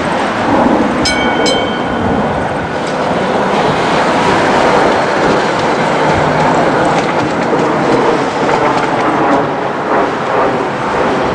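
Electric tram running over the rails and points, its wheels rumbling and clacking, with two quick strikes of a tram gong about a second in.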